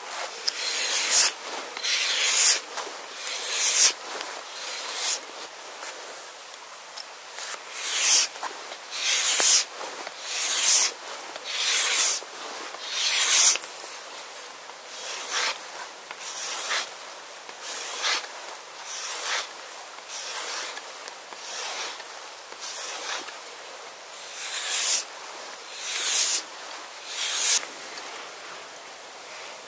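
About twenty rasping strokes with short gaps between them, roughly one a second, some louder than others.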